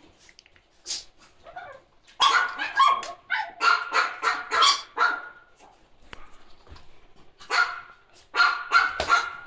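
French bulldogs barking as they play-fight: short, high, yappy barks, one about a second in, a quick run of them from about two to five seconds in, then a few more near the end.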